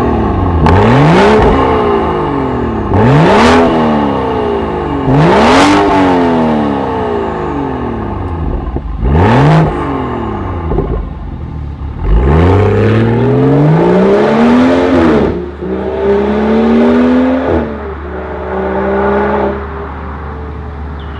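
BMW 540i's B58 3.0-litre turbocharged straight-six through an Armytrix cat-back valved exhaust, loud: four sharp rev blips at standstill, then a long pull as the car accelerates away, with the pitch dropping twice at the upshifts and the sound fading as it goes.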